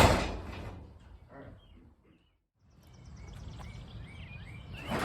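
Faint outdoor background with a few short bird chirps. The sound drops out to dead silence for about half a second in the middle.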